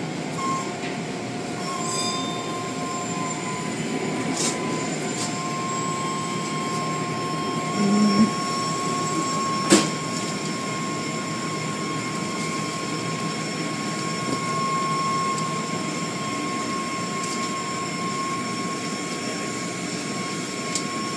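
Automatic car wash tunnel machinery running: a steady rushing noise with a thin high whine, and a sharp knock about ten seconds in.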